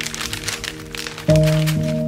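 Levain crackers being crushed inside a plastic bag, a run of small cracking and crinkling ticks, under background music of held notes that swells into a louder chord a little past a second in.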